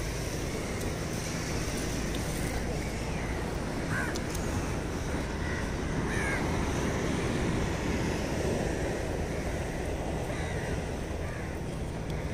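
Steady wind and surf noise on an open beach, with a few crow caws over it, two clearer ones about four and six seconds in.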